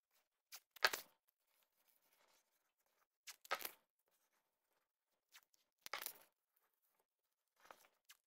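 Blue painter's tape being pulled off the roll in short rips, one every two to three seconds, as strips are laid over a motorcycle saddlebag lid.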